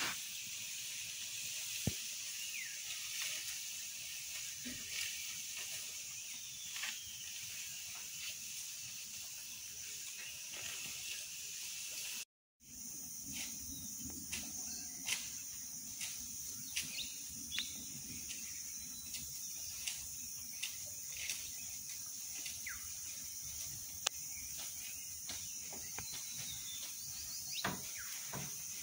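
Forest ambience: a steady high-pitched insect drone with scattered faint clicks and a few short chirps. The sound cuts out for a moment about twelve seconds in.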